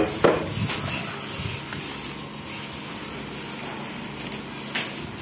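Steady hiss of a compressed-air spray gun spraying paint, with a couple of short clicks.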